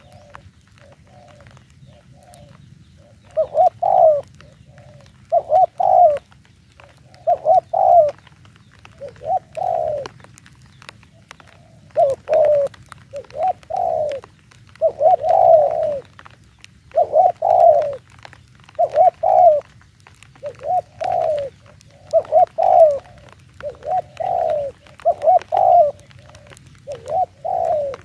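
Spotted dove cooing: short phrases of two or three notes, repeated every second or two, with a pause of a few seconds near the start.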